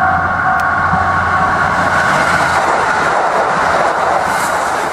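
KiHa 85 series diesel railcar train passing close by: the low drone of its Cummins diesel engines and wheels on the rails, building into a steady rushing noise as the carriages go past and easing near the end. A repeating ringing tone, about two a second, sounds over it for the first second and a half.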